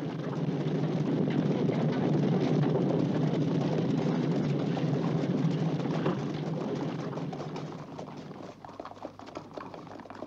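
Hooves of a group of galloping horses on stony ground, a dense rumble that fades after about eight seconds, leaving scattered separate clops.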